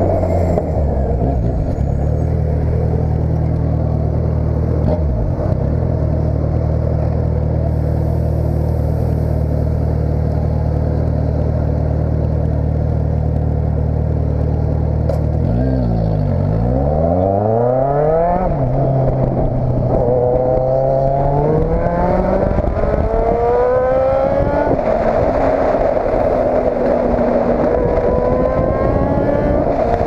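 Motorcycle engine and exhaust idling steadily at a stop. About halfway through it is revved a few times, then it pulls away, rising in pitch through several upshifts.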